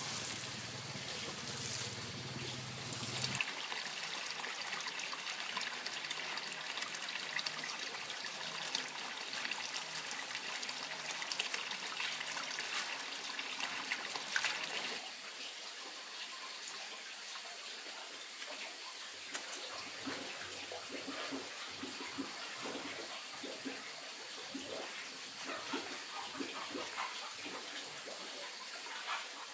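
Water trickling and splashing, with small knocks and clicks in the second half. The sound changes abruptly about three seconds in and again about halfway through.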